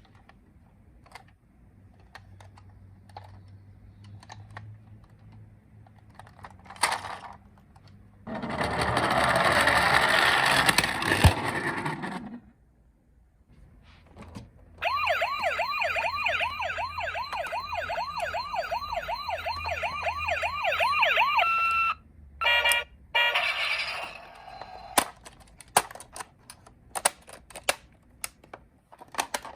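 Toy cars being handled and rummaged in a box: scattered clicks, then a loud few seconds of rattling and scraping. About halfway through, a toy ambulance's siren plays a fast up-and-down wail for about six seconds and cuts off, and the clicking of handling resumes.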